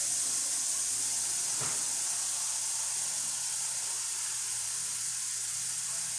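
Tap running hard with a steady hiss, hot water pouring into a mop bucket.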